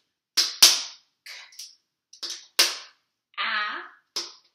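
Plastic magnetic tiles clicking onto a magnetic whiteboard one at a time, several sharp clicks. About three and a half seconds in, a woman holds a single vowel sound, sounding out a word.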